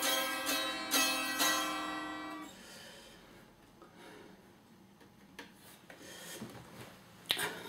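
Eastwood Mandocaster 12-string electric mandolin picked in a short run of notes, each pair of strings ringing, for the first two and a half seconds; then the ringing fades away. Quiet handling noises follow, with a sharp knock near the end.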